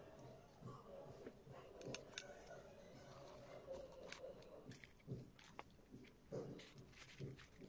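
Faint eating sounds: chewing, with scattered short clicks and crinkles from hands working food in paper wrappers.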